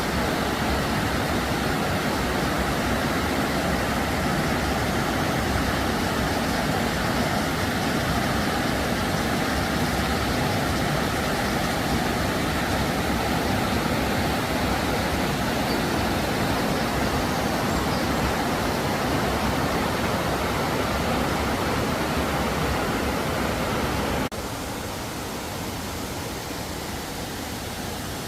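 Steady rush of cascading water from a mountain stream and waterfall. About 24 seconds in it drops abruptly to a quieter, thinner rush.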